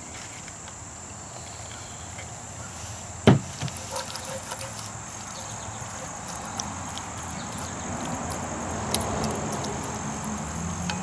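Silicone spatula scraping and stirring a thick cranberry-sauce mixture in a cast-iron Dutch oven, getting busier and louder in the second half. A single sharp knock about three seconds in, with a few lighter clicks just after.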